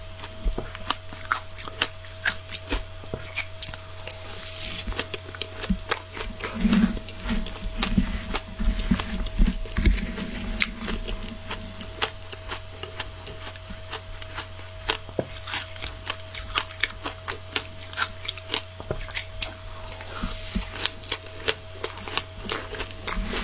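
Frozen matcha shaved ice being crunched in the mouth and scooped from a plastic tub with a metal spoon: a dense, irregular run of crisp cracks and crackles with scraping. A faint steady hum runs underneath.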